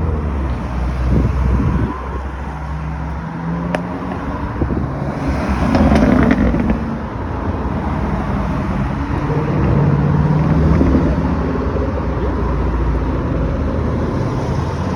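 Sports cars and supercars driving past one after another, engines running and revving, with the loudest car going by about six seconds in.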